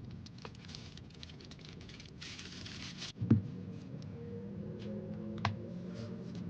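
Handling noises from unboxing: scattered light clicks and taps, a short rustle about two seconds in, and a single thump a little after three seconds.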